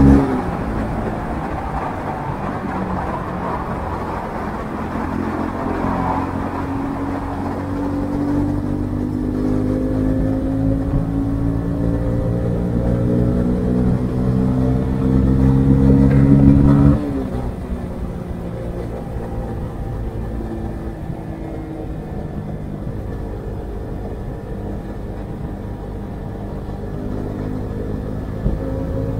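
Honda CB125R's 125 cc single-cylinder engine running through its stock exhaust while riding. The engine note climbs slowly under steady throttle, then drops suddenly about 17 seconds in as the throttle is eased off, and runs on at a lower, steadier pitch.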